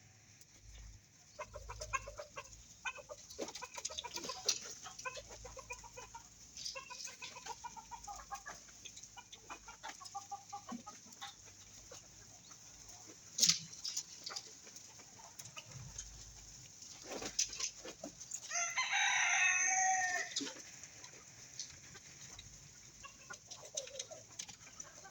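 Chickens clucking in short repeated calls, with a rooster crowing once, about a second and a half long, around three-quarters of the way through. A single sharp click about halfway.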